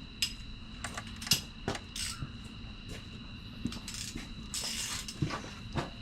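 Hand tools and small metal parts clinking and clicking now and then, with a brief rustle a little before the end.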